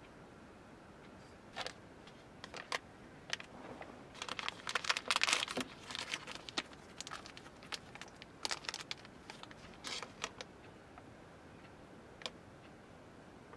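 A thin plastic sweets wrapper crinkling and crackling in the hands as it is peeled open, in irregular bursts that are busiest about four to six seconds in.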